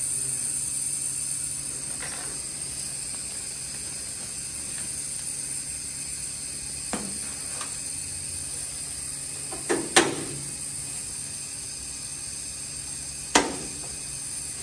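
Sharp metallic snaps and knocks from riveting an aluminium aircraft flap, over a steady hiss. There is a faint one about seven seconds in, two close together about ten seconds in (the loudest), and another a few seconds later.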